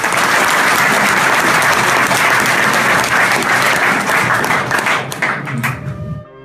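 Audience applauding. The applause starts suddenly and dies away about six seconds in.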